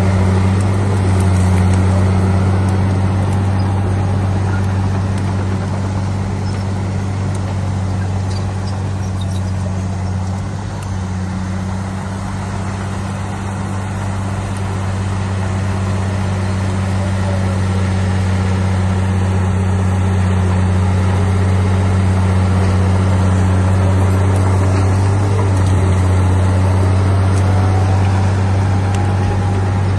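Heavy diesel engine of earthmoving machinery running steadily with a deep hum, and faint whining pitches gliding up and down above it.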